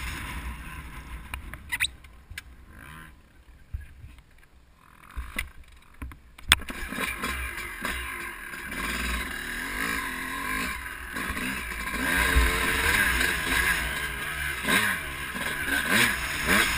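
2005 Honda CR250R's single-cylinder two-stroke engine, muffled through a GoPro case. It is quiet with scattered clicks and knocks at first; after a sharp knock about six seconds in, the engine revs up and down repeatedly and grows louder as the bike rides on.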